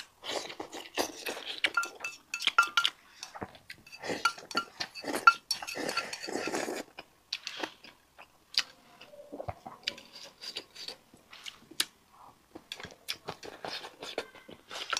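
Close-up eating sounds: wet chewing and mouth noises, with chopsticks clicking against a ceramic bowl. The sounds come thickly for the first several seconds, then thin out to scattered clicks.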